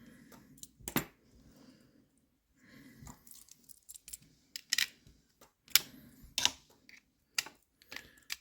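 Metal parts of a lever safe lock being handled and worked apart by hand: a series of sharp metallic clicks and clinks with soft rustling between.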